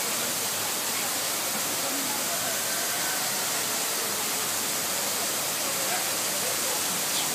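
Steady rushing of an artificial waterfall running down a rock wall, with faint voices in the background.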